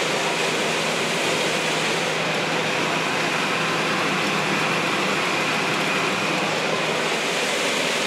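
Combine harvester running steadily while harvesting corn, heard from inside its cab as an even, unbroken machine noise.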